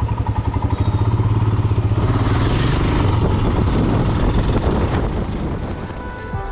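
Motorcycle engine running with a steady low pulsing beat, picking up about two seconds in as the bike pulls away.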